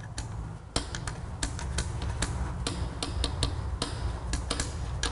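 Light, irregular metallic clicks and taps, several a second, as a part is worked and wiggled loose by hand inside a Mini Cooper CVT transmission case, over a steady low hum.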